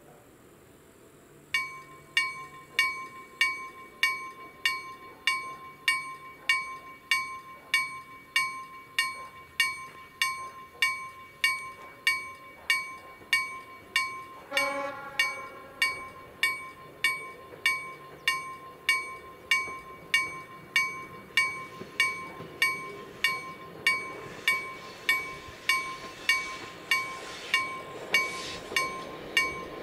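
Polish level-crossing electronic warning bell (KLD-4003 signal with an EHZ-7 loudspeaker box) starts dinging about a second and a half in, a ringing strike about one and a half times a second, signalling that the crossing is closed for an approaching train. A brief low tone sounds once about halfway through, and a train's rumble builds under the bell in the last few seconds.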